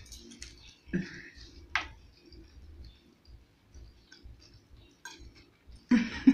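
Small ticks and clicks of fingers scooping rice against plates during hand eating, with a louder burst of noise near the end.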